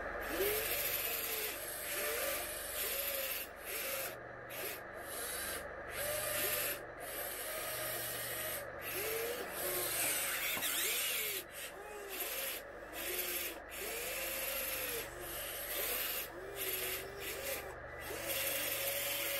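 Electric drive motors of a 1/14-scale RC Volvo EC160E excavator whirring as the boom, arm and bucket move, their pitch rising and falling with the stick inputs. The sound stops and restarts abruptly many times.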